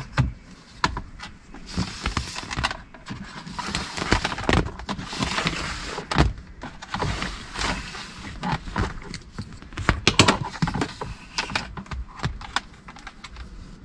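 Hands working wires and plastic trim under a car dashboard, fitting a switch into a blank switch-panel slot: irregular clicks and knocks of plastic parts, with rustling and scraping of wire and trim.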